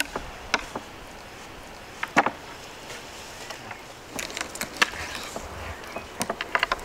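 A knife cutting raw whole chickens on a wooden cutting board, with the carcasses knocked and set down on the board: scattered sharp knocks, the loudest pair about two seconds in, then quick runs of clicks and taps near the middle and the end.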